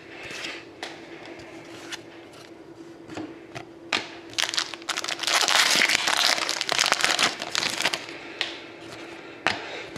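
Crinkling and tearing of a foil trading-card pack wrapper as a pack is opened, with scattered clicks of the cards being handled. The crinkling is loudest from about four to eight seconds in.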